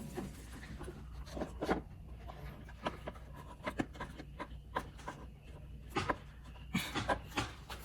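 Scattered clicks, taps and rubbing of parts being handled while the air intake is refitted to the throttle body, with a low hum underneath.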